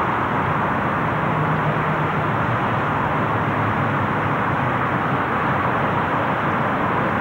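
Scania lorry diesel engines running at low speed: a steady low engine note beneath an even hiss of traffic noise.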